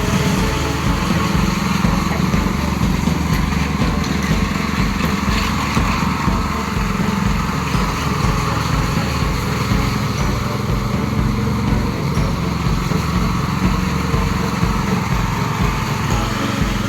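Small petrol engine of construction equipment running steadily at constant speed, with a fast, even low throb.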